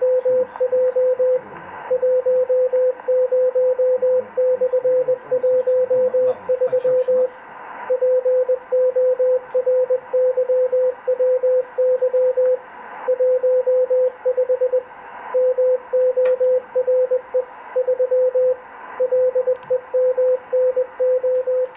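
Morse code (CW) signal received on the 15 m amateur band through a Kenwood TS-890 transceiver: a single steady tone keyed on and off in dots and dashes over constant receiver hiss.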